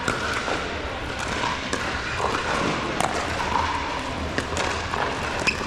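Basketball game noise: a steady crowd and court hum with scattered thuds and knocks a second or so apart, such as a ball bouncing on the floor.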